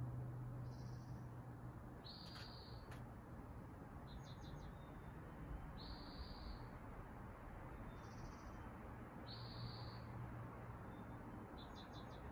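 A small bird calling over and over: short high notes every second or two, with quick rapid trills about four seconds in and near the end. Beneath it runs a low steady hum, and a couple of faint clicks come about two to three seconds in.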